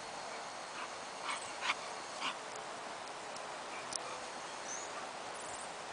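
English bull terrier puppies giving a few short yips as they play-wrestle with an adult dog, about four in quick succession between one and two and a half seconds in.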